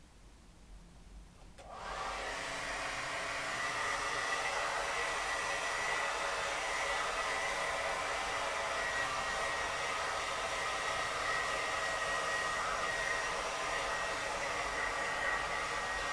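Handheld hair dryer switched on about a second and a half in, then running steadily: a rush of air with a high whine.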